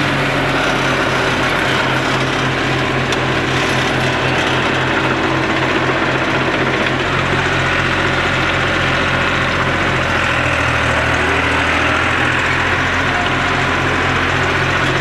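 Farm tractor engine running steadily, heard from the driver's seat as the tractor moves, with a regular low beat to its note. The engine note changes slightly about ten seconds in.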